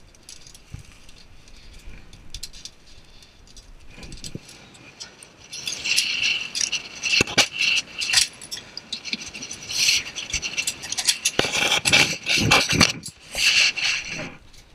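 Steel carabiners of a via ferrata lanyard clinking and jangling against the steel safety cable and iron rungs as a climber moves along. It starts faint and becomes a busy metallic rattle about five seconds in, with heavier scrapes and knocks a little before the end.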